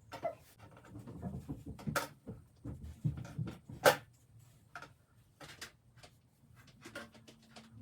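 Handling noise from hair-styling tools: a string of irregular sharp clicks and taps, two of them louder, about 2 and 4 seconds in.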